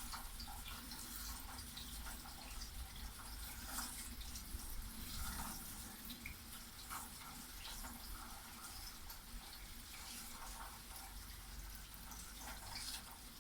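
Steady rain falling, with many separate drops splashing and dripping, over a low rumble.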